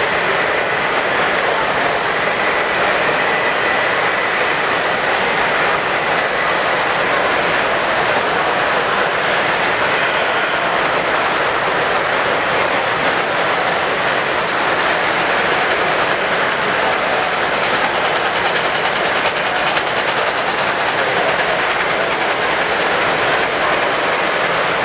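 Model trains running on layouts, a steady rolling noise at an even level.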